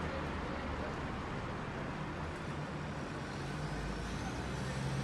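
Motor vehicle engines running steadily amid a constant rush of road noise, with a low engine hum underneath.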